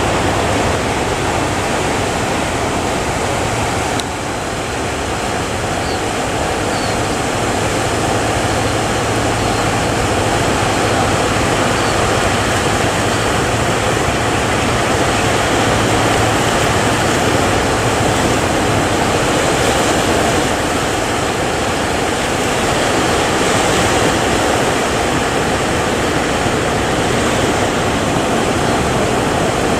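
Steady, loud rush of heavy surf and sea noise, with a faint low hum underneath that fades out about halfway through.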